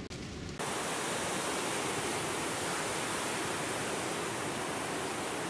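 A steady, even rushing hiss, like white noise, that cuts in abruptly about half a second in, as the sound of the animated smoke title card.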